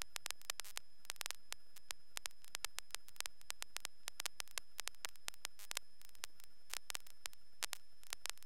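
Quiet radio and intercom audio feed between transmissions: faint static crackle made of short irregular clicks, several a second, with a faint high-pitched tone underneath.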